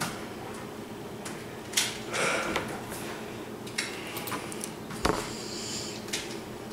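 A few sharp clicks and knocks from hands at a computer keyboard and desk, about two seconds in and again about five seconds in, with a short rushing noise just after the first. A steady low hum runs underneath.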